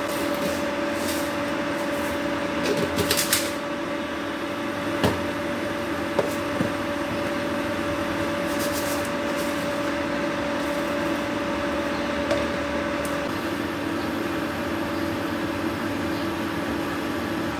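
Steady electric fan-motor hum in a kitchen, with a few light clinks of steel cookware being handled in the first half.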